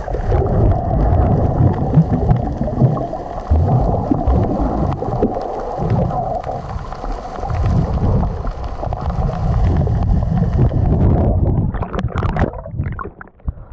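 Muffled underwater rumble and water sloshing picked up by a camera held below the sea surface while snorkeling. About eleven seconds in it breaks the surface, and the sound turns to short splashes and water crackling.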